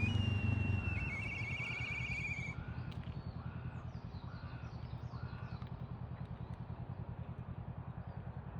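Black kite calling: a long high whistle that breaks about a second in into a rapid quavering trill, the familiar "pee-hyororo". A run of about six short calls from another bird follows, over a low, rapidly pulsing hum.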